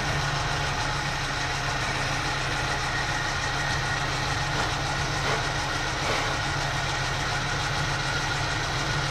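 Metal lathe running steadily, turning a cast-iron gear cluster in its chuck while the gear's bore is machined out. A low steady motor hum sits under an even whir of cutting and spinning.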